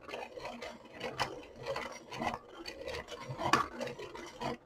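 Dahle 133 hand-crank pencil sharpener being cranked, its helical cutter shaving a colored pencil with a repeated rasping grind. The point is still being cut; the sharpener stops on its own when it is finished.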